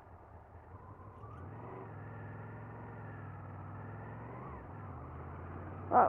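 Honda VFR800Fi motorcycle's V4 engine running with a steady hum, growing louder about a second and a half in.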